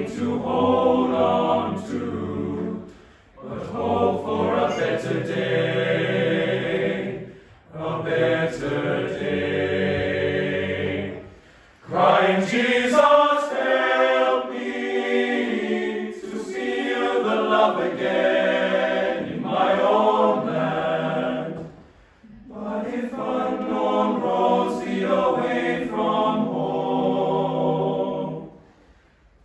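Teenage boys' choir singing unaccompanied in several parts, in phrases of a few seconds broken by short breaths. The lowest voices fall silent for the middle phrases and return near the end.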